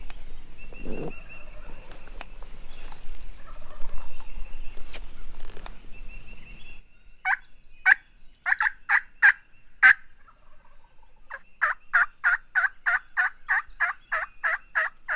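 Wild turkey yelping. A short series of sharp yelps comes about halfway in, then a longer, even run of a dozen or so yelps at about three to four a second.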